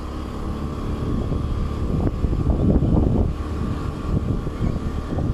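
Wind buffeting the microphone on a moving motorbike over the low hum of its engine, with gusts strongest about two to three seconds in.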